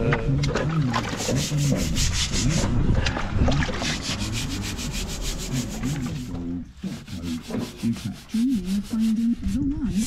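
Rapid scraping strokes of a hand tool rubbed along the mortar joints of wet brickwork during pointing, several strokes a second, with a short pause about two-thirds of the way through.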